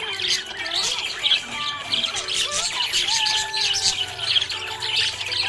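Budgerigar chirping and warbling in a busy, continuous stream of quick high chirps.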